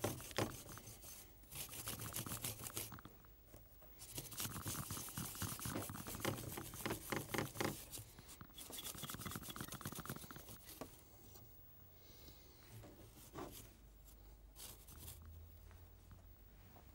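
Small stiff brush scrubbing a circuit board in quick back-and-forth scratchy strokes, busiest for the first ten seconds or so, then fainter and sparser.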